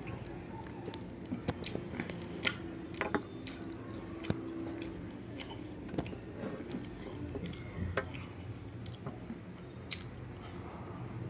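Close-miked chewing of jeera rice eaten by hand, with scattered sharp wet mouth clicks throughout.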